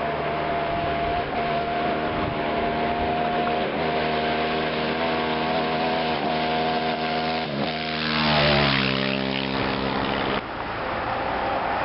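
A hill-climb racing vehicle's engine running hard up a gravel road, its note dipping briefly a few times, then passing close about eight seconds in with the pitch falling. The sound cuts off abruptly a couple of seconds later.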